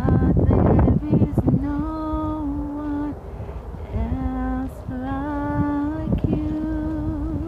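A woman's voice singing a worship song unaccompanied, in four long held notes at a steady pitch. A noisy rumble, like wind on the microphone, comes first.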